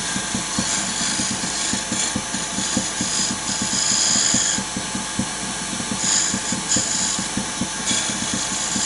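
Wood lathe running while a spindle gouge takes light finishing cuts on a small wooden bead. The cutting comes as hissing spells a second or two long over a fast, steady ticking.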